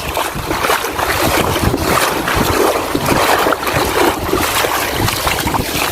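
Wind buffeting the microphone over the wash of sea water, a loud, even rushing noise.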